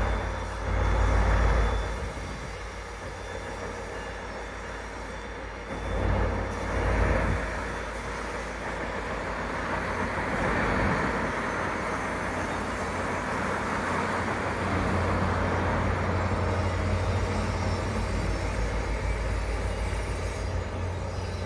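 Slow-moving train passing close by: Caltrain's F40PH diesel-electric locomotive towing a bilevel cab car and a new Stadler electric train set, with the engine running and steel wheels rolling on the rails. A steady rumble with louder low swells about a second in and again around six to seven seconds.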